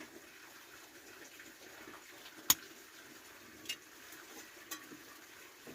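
Steady rush of a nearby waterfall, with one sharp click about two and a half seconds in and two fainter clicks later.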